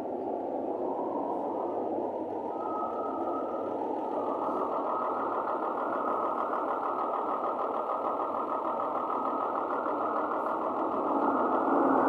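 Exhaust of a Zhongtong LCK6125G bus's Cummins diesel engine running under light load, heard from on board the bus. It gets gradually louder, with a noticeable step up near the end.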